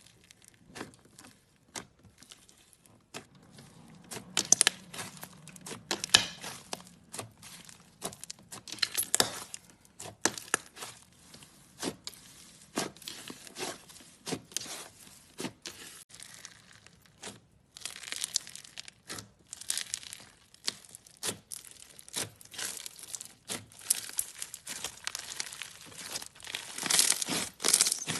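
Crunchy slime being squeezed and kneaded by hand close to the microphone: crisp crackling and popping that comes in irregular bursts, growing louder and denser near the end.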